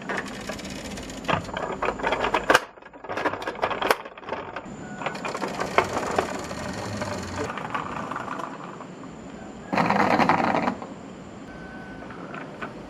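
Marbles and small stones rolling and clattering down a wooden HABA marble run, a dense rattle of rapid clicks and taps, with a louder burst of clattering for about a second late on.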